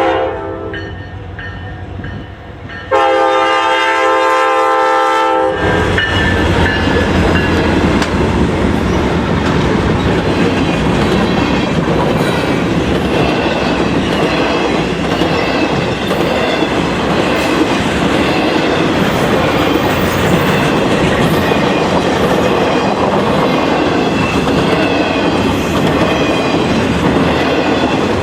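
Diesel freight locomotive's air horn sounding: a blast that ends just after the start, then a second, longer blast from about three seconds in. From about five seconds in the train passes close, loud and steady, with the clicking of wheels over rail joints.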